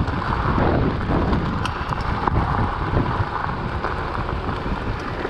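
Wind rushing over the action camera's microphone as a mountain bike rolls down a loose gravel track, with tyres crunching over stones and the bike rattling. Steady throughout, with a few small clicks.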